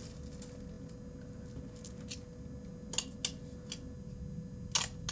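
Small plastic beads clicking as they are handled and added for crunchy slime: a few sharp, scattered clicks, thicker near the end, over a low steady hum.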